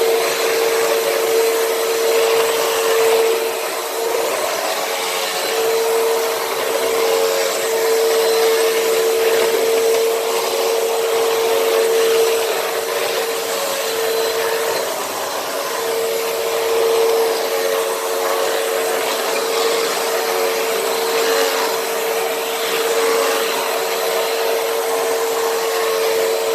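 Hoover WindTunnel upright vacuum cleaner running on a rug: a steady motor whine over a rush of suction and brush noise, dipping briefly a few times.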